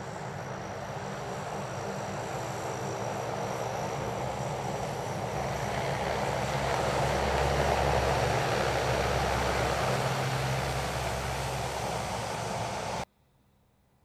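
C-130H Hercules's four Allison T56 turboprop engines and propellers running as the aircraft taxis past, growing louder to a peak about seven to nine seconds in. The sound cuts off suddenly near the end.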